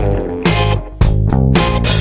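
Background music: guitar and bass over a steady beat.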